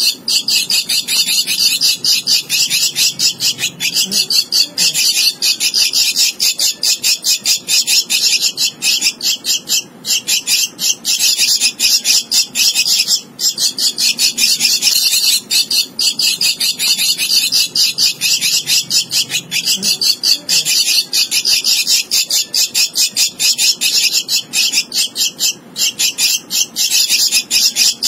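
Javan myna nestling giving harsh, high-pitched begging calls in a rapid, nonstop stream, the hungry chick gaping for food.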